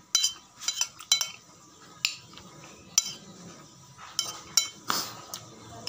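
Metal spoon clinking and scraping against a ceramic plate as rice is scooped up, in a string of irregular sharp clinks about once a second.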